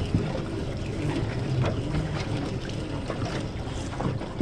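Crab drop net's rope being hauled in hand over hand over an aluminium boat's gunwale: scattered small knocks and rubbing over a steady low rumble of wind and water.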